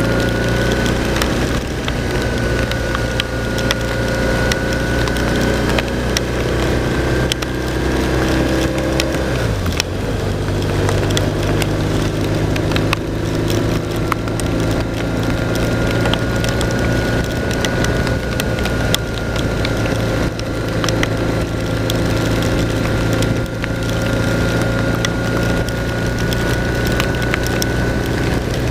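BMW R1200 RT motorcycle's flat-twin boxer engine running steadily at road speed in heavy rain, with a constant spatter of sharp crackles from rain hitting the bike and rider. The engine note dips briefly about ten seconds in and picks up again.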